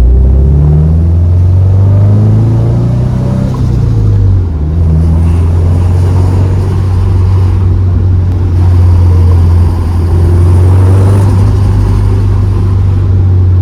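Turbocharged Subaru WRX flat-four engine accelerating from a stop. It revs up with rising pitch for about four seconds, shifts with a brief dip, then settles into a steady low drone under way.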